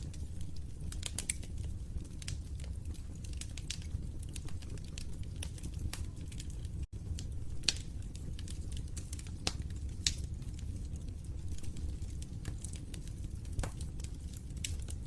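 Wood fire crackling, with irregular sharp pops and snaps over a low steady rumble of burning. A few louder pops stand out, and the sound cuts out for an instant about seven seconds in.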